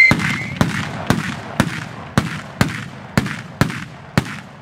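Mascletà firecrackers (masclets) exploding in a steady rhythm, about two sharp bangs a second, each trailing off in a short echo.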